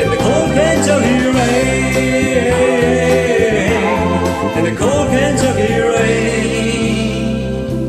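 Karaoke band track with sustained, wordless sung notes, a man's voice and backing vocals held with vibrato over the band. The voices stop near the end.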